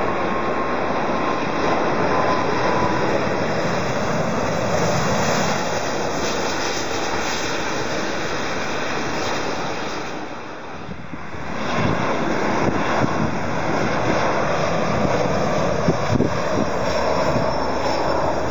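Jet engine noise of an airliner on low final approach, a four-engine Airbus A340-600, with a faint falling whine in the first few seconds. The noise dips briefly a little past halfway, then rises again as a Boeing 737 comes in to land.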